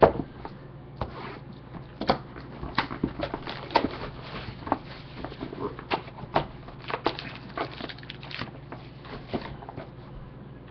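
Trading-card boxes and a foil card pack being handled on a desk: a sharp knock at the start as a box is set down, then scattered taps, clicks and light rustling of cardboard and foil wrapper.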